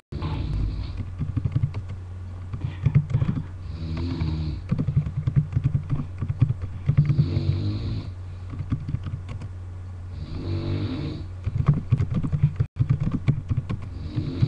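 A person snoring loudly in regular cycles, about one breath every three and a half seconds. Each breath has a hiss and a rattling low drone.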